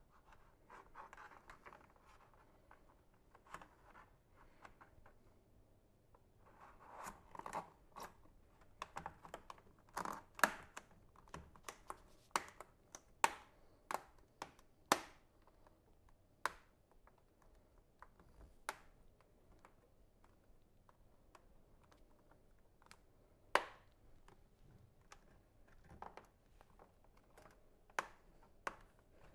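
Hands fitting a carbon fibre cover onto a car's front grille: faint, scattered sharp clicks and taps as the piece knocks and presses against the grille, with brief scratchy rustling in between.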